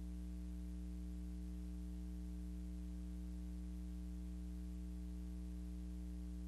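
Steady low electrical hum with a faint hiss, unchanging throughout; no other sound.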